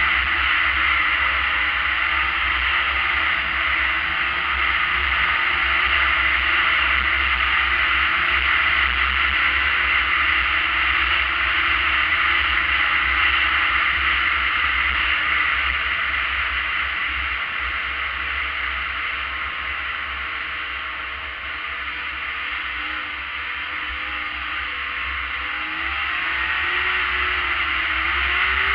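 Arctic Cat ZRT 600 snowmobile's three-cylinder two-stroke engine running at speed across snow, its pitch wavering. It eases off and quietens about two-thirds of the way through, then the revs climb again near the end.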